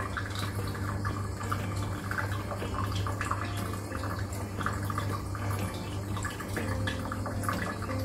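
Water trickling and dripping in a small tabletop fairy-house waterfall fountain: a continuous patter of small, irregular splashes over a steady low hum.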